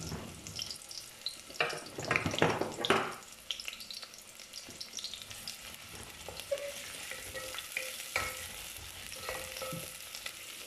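Sliced onions sizzling in oil in a metal pot, frying towards golden brown, while a wooden spatula stirs them and scrapes against the pot. A run of louder scrapes and knocks comes about two seconds in, then a steady faint sizzle with occasional clicks.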